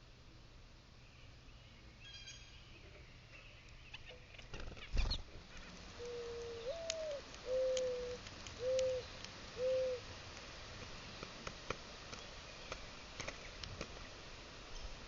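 Mourning dove singing one song: a drawn-out coo that swells up and falls away, followed by three short, lower coos. A single thump just before it, and scattered faint ticks.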